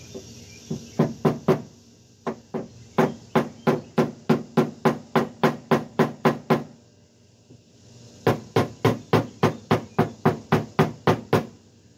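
Hammer blows on a tape-wrapped wooden block held against a Buick's dented front fender, knocking the dent out. Sharp strikes come at about three a second, in two runs with a short pause between.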